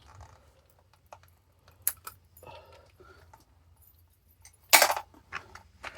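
Scattered light clicks and small metallic jingles of handling, with one short, loud rush of noise just before five seconds in.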